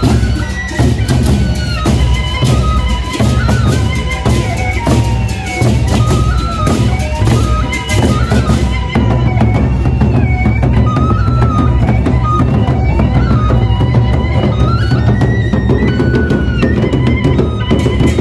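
Gendang beleq ensemble playing in procession: large double-headed drums beaten in a dense, driving rhythm, with a wavering melody line above them. The bright clatter on top thins out about nine seconds in while the drumming continues.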